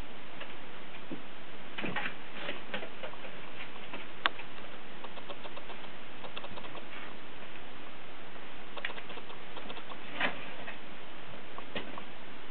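Kittens' paws and claws scuffing and tapping on a cardboard box and a paper sheet: scattered light ticks and scratches, with one sharp click about four seconds in, over a steady hiss.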